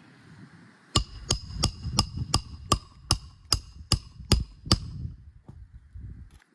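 Roofing hammer striking a metal roof snake slid under a three-tab asphalt shingle, driving a roofing nail back in. Eleven quick, even metallic strikes, about three a second, each with a short ring, starting about a second in and stopping near the end.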